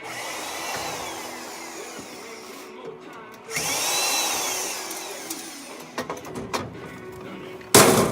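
A power drill runs twice, each time winding up in pitch and then slowing down, as screws are worked out of a microwave's casing. A few clicks follow, then a loud sharp knock near the end.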